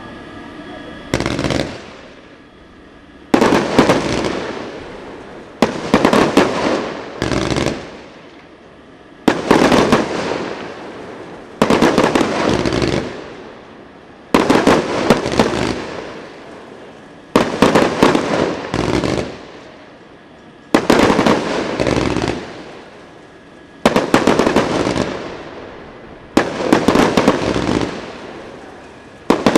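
Pyrotrade 'Coconut Dream' firework cake firing about a dozen volleys, two to three seconds apart: each a quick cluster of sharp bangs followed by a fading crackling hiss as the stars burst.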